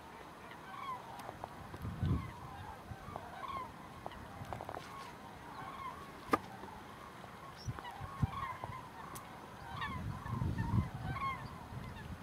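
A flock of common cranes calling: many short, overlapping trumpeting calls throughout. There are a few low rumbles and a sharp click about six seconds in.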